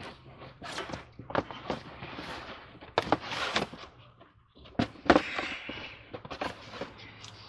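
Irregular knocks, clatter and shuffling of someone moving about and handling objects and cords, the sharpest knock about five seconds in, over a faint steady low hum.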